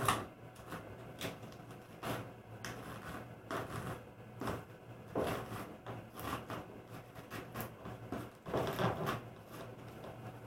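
A hairbrush dragging through a doll's hair in a series of irregular brush strokes.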